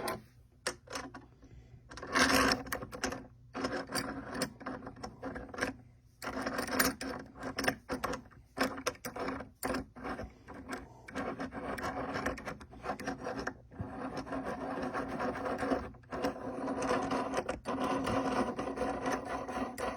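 Metal parts of a small swivel-base bench vise being handled and fitted back together: repeated clicks and knocks, with long stretches of scraping and rubbing as the pieces slide against each other.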